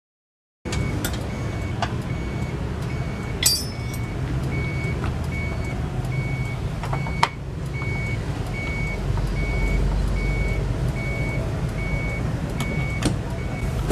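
A vehicle's reversing alarm beeping steadily, about two evenly spaced beeps a second, over a low engine rumble, with a few sharp clicks and knocks. The sound cuts in abruptly just under a second in.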